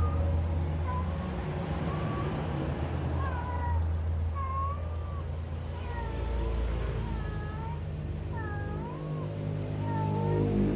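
Domestic cat making a string of short chirping meows, each bending up and down in pitch, coming more often in the second half, over a steady low hum.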